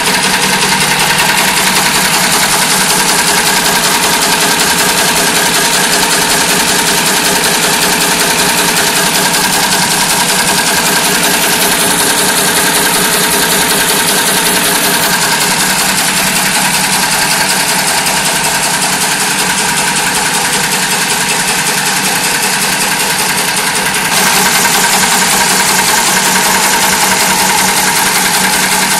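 Automatic chain-making and laser-welding machine running, a fast, steady mechanical clatter. It gets a little louder near the end.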